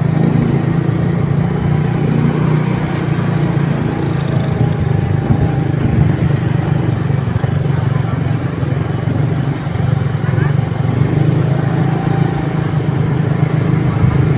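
Motorcycle engine running steadily with a constant low hum, as the bike rides along.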